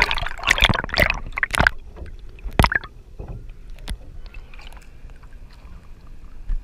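Water splashing and sloshing against an action camera held at the sea surface: a cluster of loud splashes in the first two seconds and another a little later, then quieter, muffled water noise as the camera dips under.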